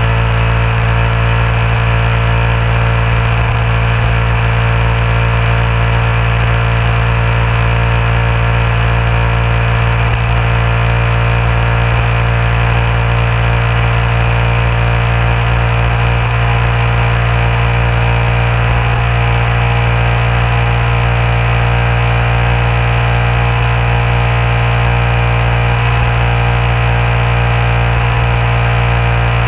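Motorcycle engine running at a steady cruising speed: a loud, constant low hum whose pitch doesn't change, picked up by a camera mounted on the bike.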